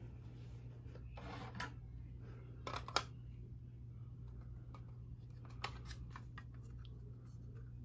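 Plastic mounting plates handled and knocked together, giving a few light clicks with a sharper click about three seconds in, over a steady low hum.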